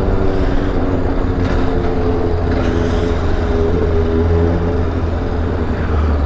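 Motorcycle engine running at low, steady revs.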